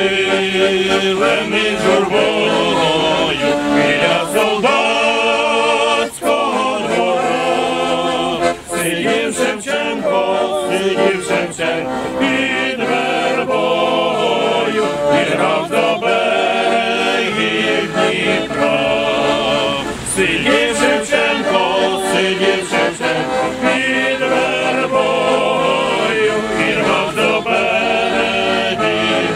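A small mixed group of men's and women's voices singing a song together, with an accordion accompanying.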